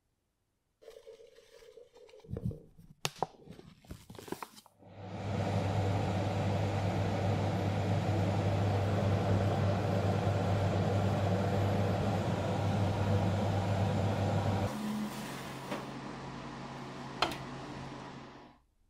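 Powder coating gun spraying powder paint: a steady rush of air over a deep motor hum, starting about five seconds in after a few knocks and clicks of handling. A few seconds before the end the rush drops away to a quieter steady hum, broken once by a sharp click.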